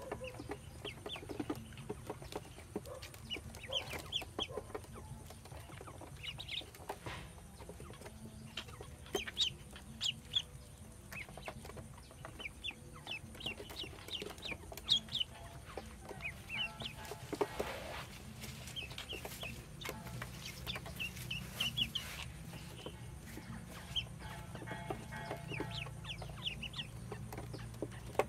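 A group of yellow domestic ducklings peeping: many short, high-pitched calls in quick irregular runs, overlapping one another.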